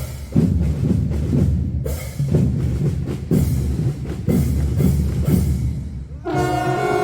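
Fanfare marching band's drum section playing a steady beat, with a heavy stroke about once a second. Near the end the brass comes in with a held chord.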